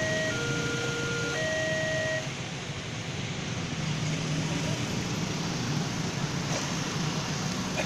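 Railway level-crossing warning signal sounding a two-note electronic tone, alternating low and high about once a second, which stops about two seconds in. Motorcycle engines and traffic noise follow as the barrier lifts.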